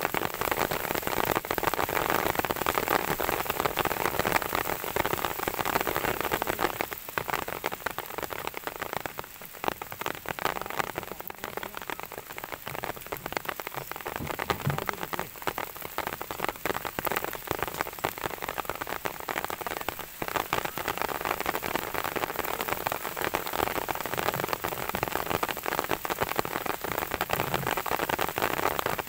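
Heavy rain falling, a dense steady hiss full of close drop hits; it eases a little for a few seconds about a third of the way in, then picks up again.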